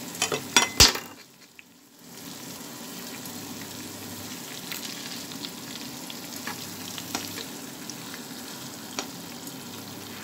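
Chicken pieces frying in ghee in a nonstick kadai: a steady sizzle with scattered crackles as a fork turns them. Several sharp clicks of the metal fork on the pan come in the first second, followed by a brief dip before the sizzle returns.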